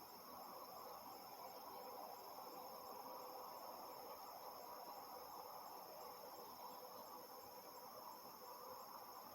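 Faint, steady, unbroken chorus of insects such as crickets, high-pitched, over a low even hum from far off.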